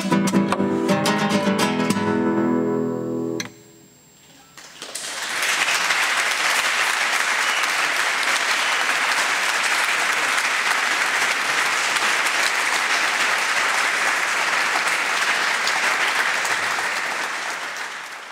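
Classical guitar playing quick strummed chords and ending on a ringing final chord that is cut off about three and a half seconds in. After a short pause an audience applauds steadily, fading out near the end.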